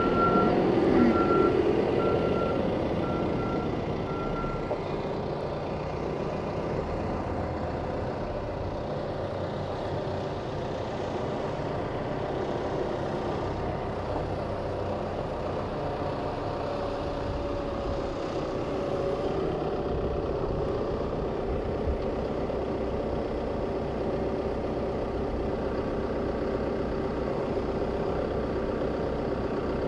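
A loader's diesel engine runs steadily while the loader works its bucket. For the first few seconds its reversing alarm beeps about twice a second, then stops.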